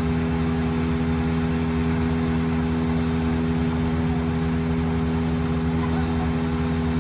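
An engine running steadily at one constant speed, without revving, from the tree-trimming work.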